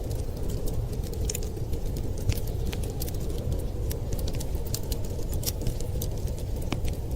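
Wood fire in a fireplace crackling: frequent, irregular sharp pops and ticks over a steady low rumble.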